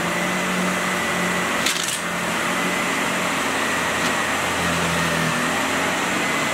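SEBO Felix upright vacuum cleaner with a bypass motor running steadily on a carpet mat, giving a steady high whine over a low hum. A sharp clatter comes about two seconds in, and a lighter click at about four seconds.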